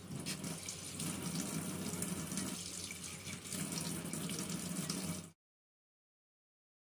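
Water running from a tap onto hands and splashing into a stainless steel sink as soapy hands are rinsed. It cuts off suddenly about five seconds in.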